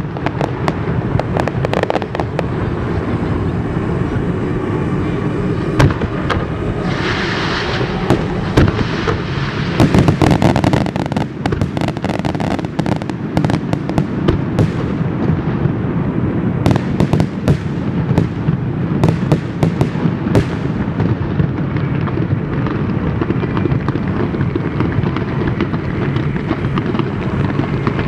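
Aerial fireworks display: a continuous barrage of shell bursts and crackling. A hissing rush comes about seven seconds in, and the bursts come thickest around ten seconds and again from about seventeen to twenty-one seconds.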